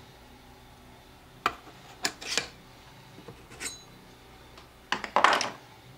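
Clicks and knocks of hard objects being handled: several sharp taps and short clatters, the loudest a brief rattle just past five seconds in.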